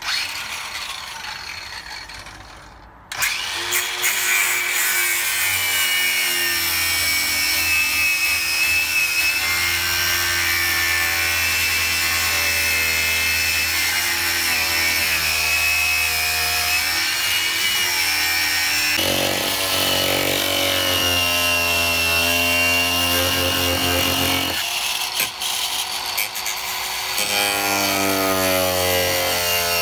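DeWalt 18V cordless angle grinder starting up about three seconds in and running steadily with a high whine as its disc cuts through laminate worktop board. The tone of the cut shifts twice in the second half as the load changes.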